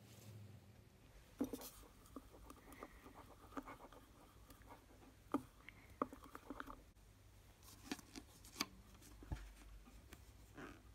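Faint, scattered scrapes and taps of a wooden craft stick against a drinking glass as glitter is stirred into a glue mixture for slime, with a few sharper clicks.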